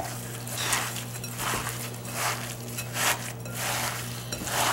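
Hands squishing and kneading a wet ground venison mixture with egg and breadcrumbs in a glass bowl, in irregular squelching strokes about twice a second, over a steady low hum.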